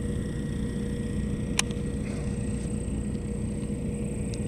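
Steady low rumble with a faint steady hum on top, and one sharp click about a second and a half in.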